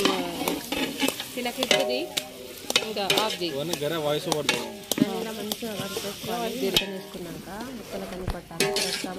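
Mutton curry sizzling as it fries in a large pot, stirred with a metal ladle that clinks and scrapes against the pot many times, with people's voices in the background.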